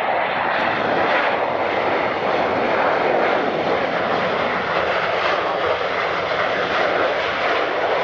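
Jet engines of a Boeing 737 airliner running loudly and steadily as the aircraft rolls along the runway.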